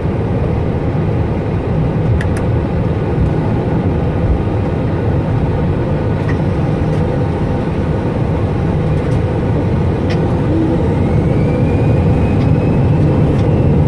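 Airbus A320 on its takeoff roll, heard from the cockpit: a steady loud rumble of the engines and the wheels on the runway, growing a little louder as the aircraft gathers speed. A few short sharp clicks run through it, and a faint rising whine comes in near the end.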